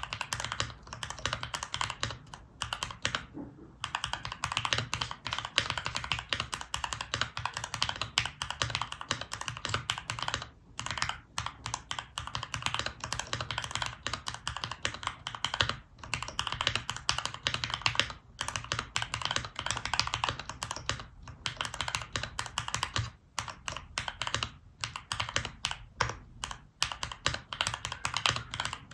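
Continuous fast typing on a mechanical keyboard with lubed and filmed Cherry MX Nixie switches, an FR4 plate, foam dampening and GMK keycaps. The keystrokes run in dense runs of clicks, broken by brief pauses a few times.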